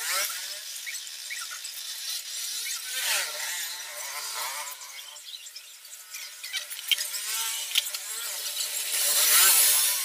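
Petrol with a little oil mixed in poured through a small plastic funnel: a splashing trickle with squeaky, gurgling sweeps, loudest near the end. The fuel is fed in from above to prime the dry, freshly assembled engine so it will fire.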